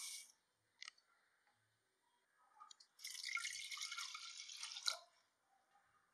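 Dry moong dal grains pouring into an aluminium pressure cooker, ending just after the start. About three seconds in, water is poured onto the dal in the cooker for about two seconds, then stops.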